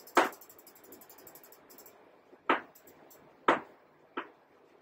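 Chalk writing on a blackboard: a few short, sharp chalk strokes with faint scratching between them.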